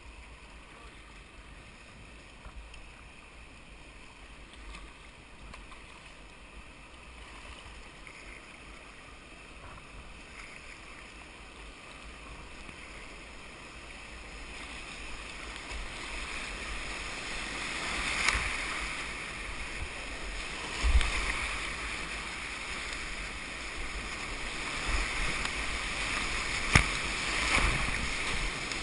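River whitewater rushing around a kayak, growing louder through the second half, with a few sharper splashes.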